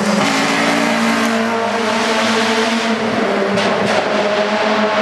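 Race-prepared hatchback's engine running hard at high revs as the car drives past through a cone slalom, its pitch shifting up and down.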